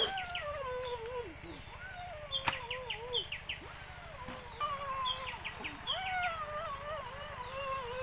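A small animal whining in a series of long cries that waver up and down in pitch, with short high chirps between them.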